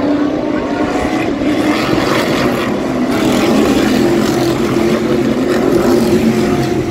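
Stadium Super Truck race engines running at speed on the circuit, a steady loud engine drone whose pitch shifts slightly and that grows a little louder as a truck approaches.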